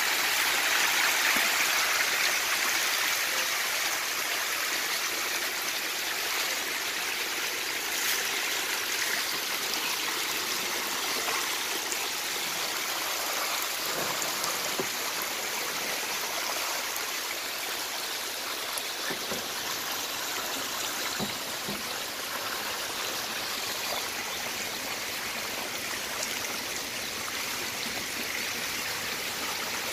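Thousands of young desi magur (walking catfish) splashing and churning the surface of a shallow tank in a feeding frenzy on scattered feed pellets: a steady rush of splashing water, a little louder at the start, with small scattered splashes.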